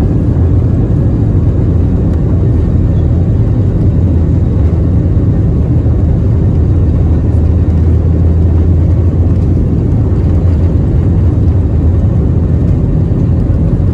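Airliner cabin noise: the jet engines and airflow make a loud, steady low rumble.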